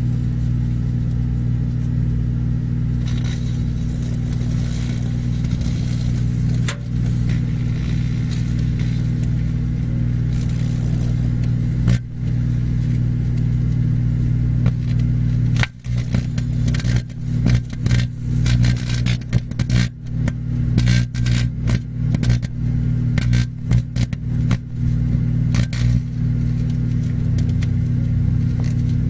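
Microwave oven running with a steady, loud electrical hum while a Sony Ericsson mobile phone cooks inside. About halfway through, rapid irregular crackling and snapping sets in and keeps going: the phone arcing in the oven.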